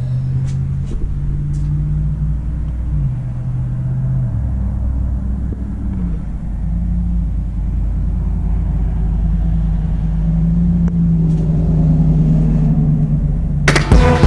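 Honda DC5 K20A four-cylinder engine running, a steady low note whose pitch steps a couple of times and then rises slowly. Music starts near the end.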